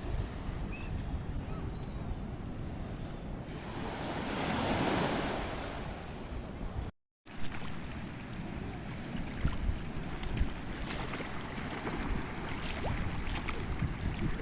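Sea waves washing in, one swelling up and falling away about five seconds in, with wind rumbling on the microphone. The sound cuts out for a moment midway, then the wash returns rougher and crackling.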